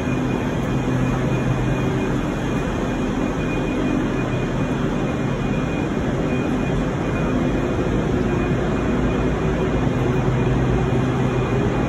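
A ScotRail electric multiple unit standing at the platform, its onboard equipment giving off a steady low hum with a faint high whine, over a constant wash of station noise.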